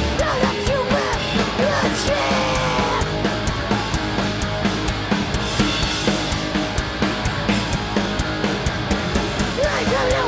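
Live punk band playing loud and fast: distorted electric guitars, bass and a pounding drum kit. Shouted vocals come in at the start, drop out, and return near the end.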